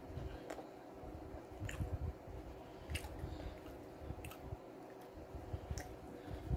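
Close-miked chewing of a mouthful of vegetable lo mein with the mouth closed: soft, repeated squishy thuds with a sharp wet mouth click every second or so.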